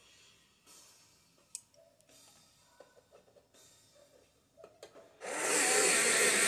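Faint pencil strokes scratching on paper, then about five seconds in a much louder, steady whirring noise starts and holds.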